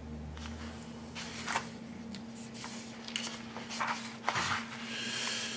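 Paper rustling and crackling in short scattered bursts as a page of a printed instruction booklet is turned and pressed flat by hand, with a longer rustle near the end.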